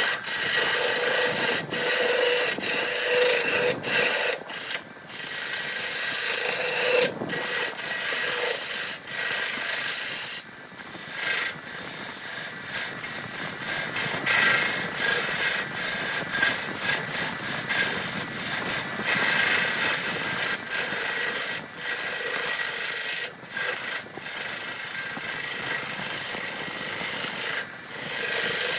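Wood being worked with an abrasive tool, a continuous scraping rasp broken by frequent short pauses.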